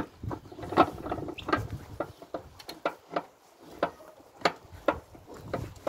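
Hand-turned iron screw press being cranked down on a sack of boiled old beeswax comb: irregular sharp metal clicks and creaks from the screw and T-handle, about ten in a few seconds.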